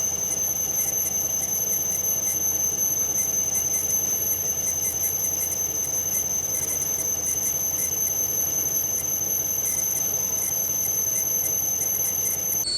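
Metal lathe cutting, with a steady high-pitched squeal held at one pitch and light rapid ticks over the running noise.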